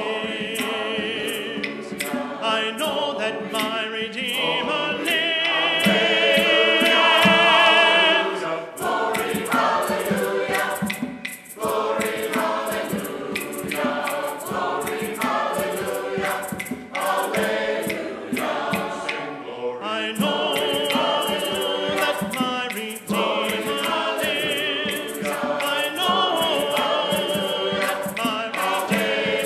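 A choir singing in several-part harmony, with high voices wavering over the lower parts.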